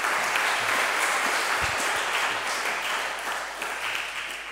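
Audience applauding, a dense steady clapping that begins to fade near the end.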